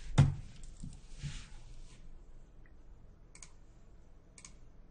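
Computer keyboard keystrokes: one sharp keystroke just after the start and a few softer ones over the next two seconds, then two separate clicks about a second apart near the end.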